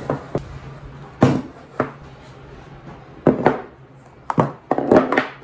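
A run of irregular knocks and clatters, wood striking wood, with several impacts and the busiest cluster near the end.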